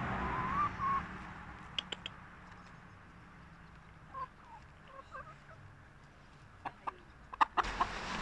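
Domestic hens clucking softly in short calls while being hand-fed, with a few sharp clicks, the loudest cluster near the end.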